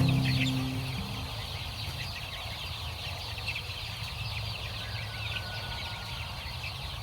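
A flock of chickens calling: many short, high calls overlapping in a continuous chorus, over a low steady hum. Music fades out in the first second.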